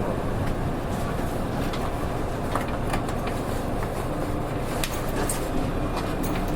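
Interior running noise of a PKG-RA274MAN city bus: a steady engine and road drone, with a faint steady whine joining about two thirds of the way through. The recordist flags this bus for an abnormal running noise.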